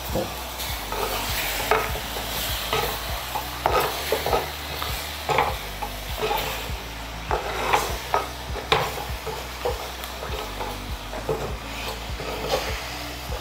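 A ladle stirring whole fish through sizzling fried spices in a clay pot: irregular scrapes and knocks against the pot over a steady sizzle.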